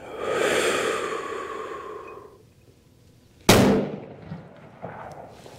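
A long, breathy exhale for about two seconds, then a single sharp shot from a .30-06 rifle about three and a half seconds in, dying away within half a second.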